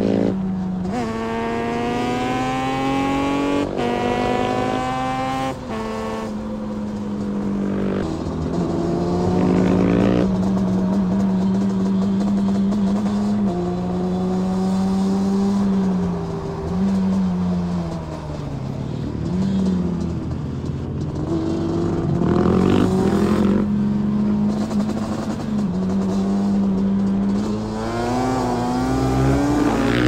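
Motorcycle engine pulling hard through the gears: the pitch climbs and drops back at each shift several times, then holds steady, eases off in the middle and climbs again near the end.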